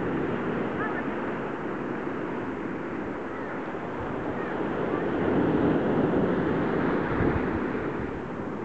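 Sea waves breaking and washing up a sandy beach, a steady surf noise that swells about halfway through. Wind rumbles on the microphone near the end.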